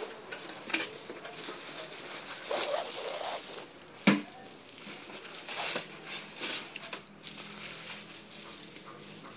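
Plastic bags crinkling and cardboard packaging rustling as speakers are unpacked, with one sharp knock about four seconds in as a bagged satellite speaker is set down on a glass counter.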